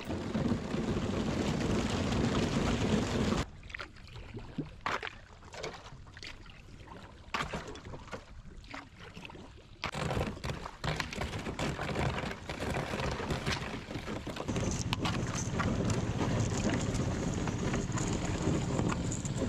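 SeaBird Victory HV sea kayak being paddled through thin, broken ice: paddle strokes in the water with a dense crackle and clink of ice shards against the hull. There is a quieter stretch between about four and ten seconds in.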